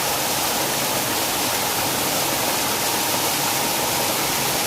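Sugar mill spray pond: water jetting from the spray nozzles and falling back onto the pond, a steady rushing hiss like a waterfall, with a faint steady hum underneath.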